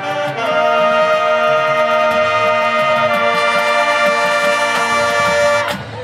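Marching band's brass section holding a loud full chord over steady drum hits, closing on a final crash near the end and cutting off.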